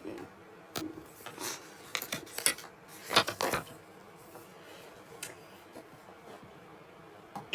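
Small hard objects clicking and clattering: an irregular scatter of sharp clicks and knocks, with the loudest cluster a little before the middle.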